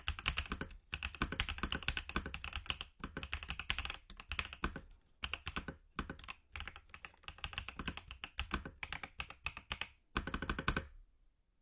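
Fast typing in bursts on the Attack Shark X85, a gasket-mounted mechanical keyboard with linear White Jade switches, with short pauses between runs of keystrokes. The typing stops near the end.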